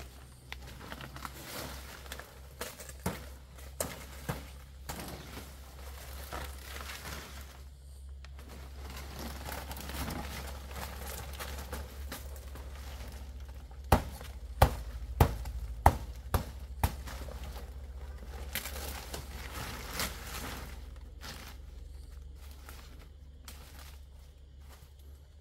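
Dry palm leaves rustling and crackling as they are handled, with a quick run of about six sharp knocks about halfway through.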